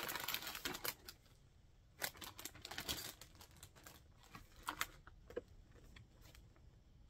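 Packaging rustling and crinkling as items are taken out of a subscription box by hand. A dense crinkle fills the first second, then scattered light clicks and short rustles follow.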